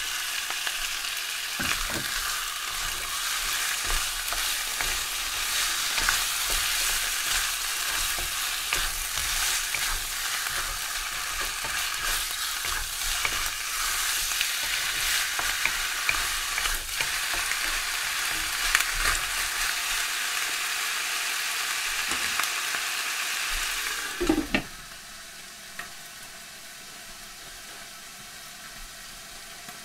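Chicken pieces sizzling loudly in hot oil in a wok, with the clicks and scrapes of a wooden spatula stirring them. About 24 seconds in, a glass lid knocks down onto the wok and the sizzle drops to a muffled hiss under it.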